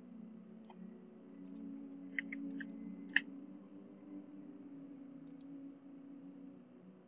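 Computer mouse clicking: scattered sharp single and double clicks, the loudest about three seconds in, over a steady low hum.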